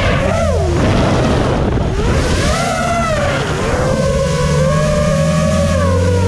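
FPV racing drone's motors whining, the pitch dipping sharply and climbing back with throttle changes, over a steady low hum.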